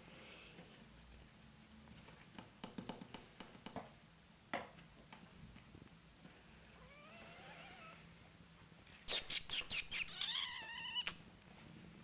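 Ocicat kittens mewing: one short call rises and falls, and a higher call falls away just after a fast run of about six loud, sharp clicks. Light tapping is heard earlier.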